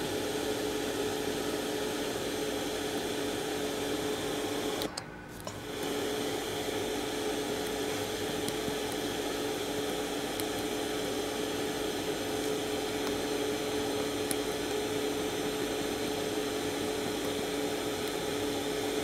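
Steady hiss of static with a low steady hum from a homemade RDA5807M FM radio receiver. The sound drops out for about a second about five seconds in, then comes back.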